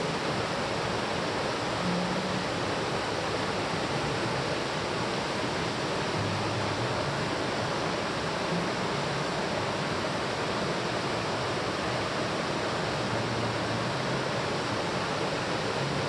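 Shallow mountain stream water rushing and gurgling over rocks, a steady, even rush.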